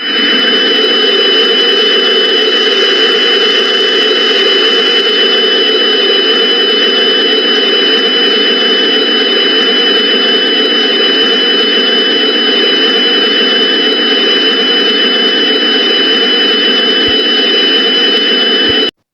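A loud, harsh, steady rush of noise with two steady high-pitched tones over it, starting suddenly and cutting off abruptly near the end: an Emergency Alert System-style alarm background track.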